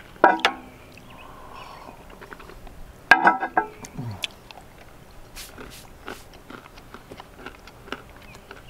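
A person chewing a bite of chocolate brownie with an almond, with small crunching clicks, and two short throaty 'mm' sounds, one near the start and one about three seconds in that drops in pitch.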